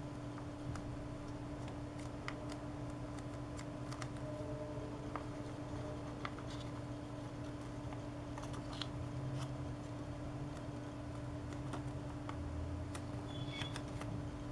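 Paper being folded and creased by hand: scattered small clicks and crinkles over a steady low hum.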